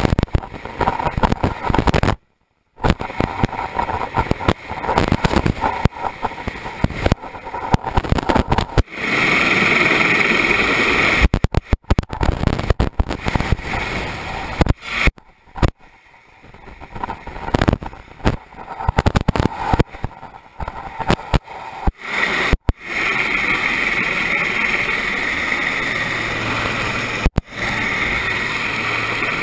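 Rescue-helicopter rotor and engine noise with downwash wind buffeting the microphone, crackling and uneven. The sound cuts out briefly a couple of seconds in, and runs steadier in the last few seconds.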